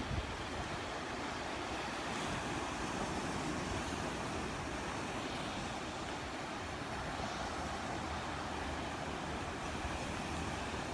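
A steady wash of surf on the beach, mixed with wind rumbling on the microphone.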